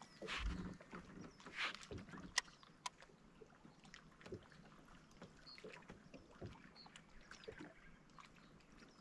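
Faint water sloshing and light knocks and clicks around a small fishing boat, with a few short splashy swishes in the first two seconds and one sharp click a little later.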